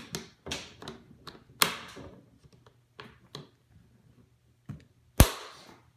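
Boyt H20 hard tool case being closed up: a series of sharp clicks and knocks, the loudest a heavy knock about five seconds in.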